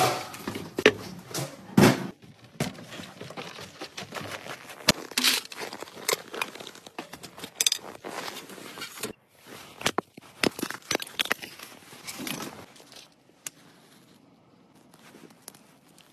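Irregular clatter of knocks, clinks and crunches from things being handled by hand, loudest near the start, dying down to a faint steady background about 13 seconds in.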